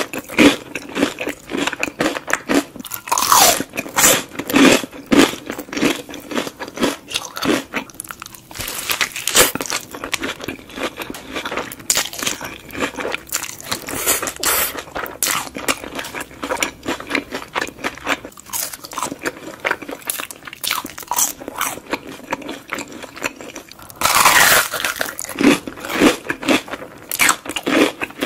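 Close-miked ASMR eating of breaded fried onion rings and a burger: a long run of crisp, irregular bites and crunches with chewing between, loudest in a burst of crunches near the end.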